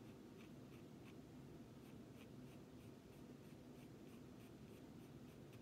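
Graphite pencil scratching short, quick hair strokes on Bristol board, faint and steady at about two to three strokes a second.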